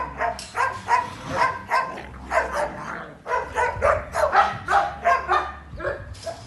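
Dogs barking in quick, rough bursts, about three a second, while play-fighting.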